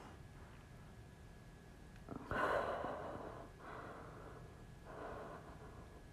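A woman breathing hard under the effort of holding a plank: one loud breath about two seconds in, then two softer breaths.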